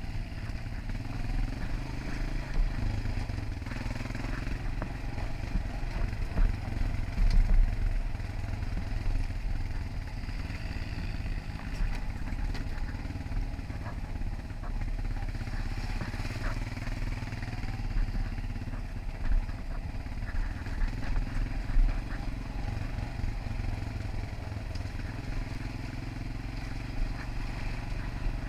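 ATV engine running steadily as the quad is ridden along a rough dirt trail, with scattered small knocks and rattles over the bumps.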